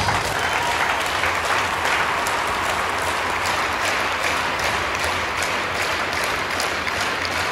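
Audience applauding: a steady wash of clapping from many hands.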